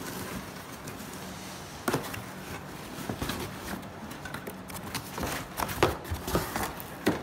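Cardboard packaging being handled as items are pulled out of a shipping box: irregular knocks, scrapes and rustles of cardboard, with one sharp knock about two seconds in and a run of louder knocks near the end.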